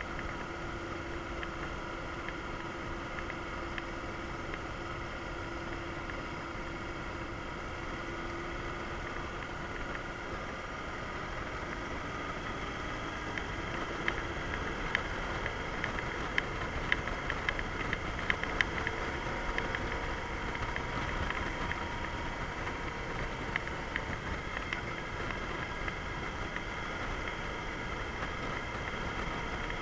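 Yamaha DragStar Classic's V-twin engine running steadily while cruising, mixed with wind and road noise. About halfway through, a run of sharp clicks is heard over it.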